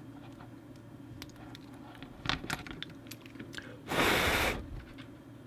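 Small clicks and taps from handling a freshly soldered audio connector and its parts on the bench, with a short loud burst of hiss about four seconds in.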